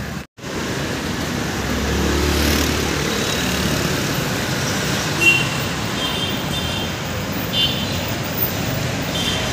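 City street traffic: steady engine and road noise from passing motorcycles and auto-rickshaws, with a low engine rumble about two seconds in. It cuts out completely for a moment just after the start, and several brief high-pitched notes sound in the second half.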